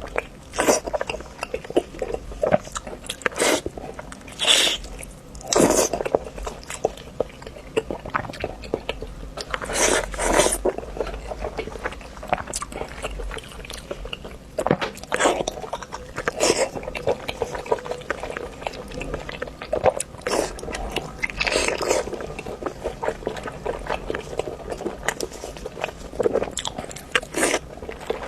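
Close-miked eating sounds: a person biting and chewing pig's trotters, with irregular loud bites among steady chewing noises.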